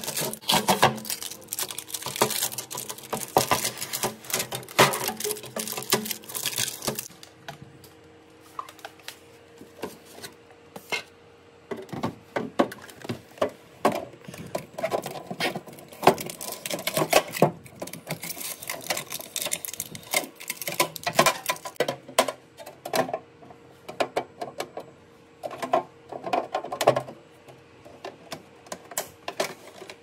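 Plastic clicks, taps and knocks from a hand handling the clear drawers and ice-making tray of a Panasonic six-door refrigerator. They come thick for the first seven seconds or so, then more scattered, over a faint steady hum.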